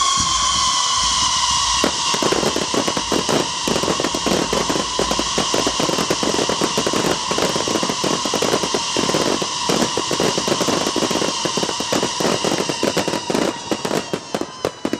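Fireworks: several high whistles that sound together and sag slightly in pitch, over dense, rapid crackling and popping. The whistles stop near the end.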